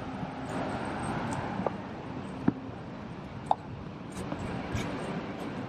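City street ambience: a steady wash of road traffic, swelling as a vehicle passes in the first couple of seconds, with a few short sharp clicks or knocks.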